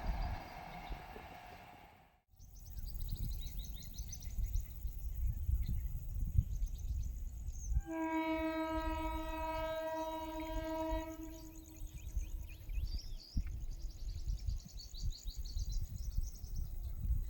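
Indian Railways ICF train's horn sounding one long, steady blast of about three and a half seconds, starting about eight seconds in, over a low rumble.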